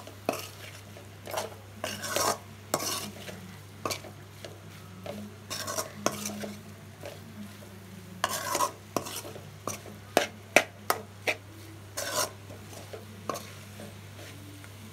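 A metal spoon stirs and scrapes boiled potatoes and onion-tomato masala around a hammered metal kadai in irregular strokes, with clinks of spoon on pan, over a light sizzle of the masala frying in oil.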